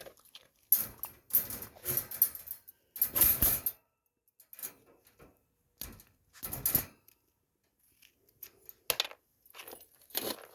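Metallic rattling and clinking in several short, irregular bursts, from the dog moving about in his crate.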